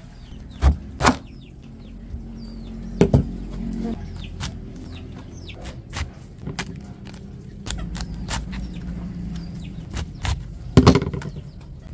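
Kitchen knife slicing through a head of cabbage onto a cutting board: irregular sharp knocks, about a dozen, with a loud cluster near the end.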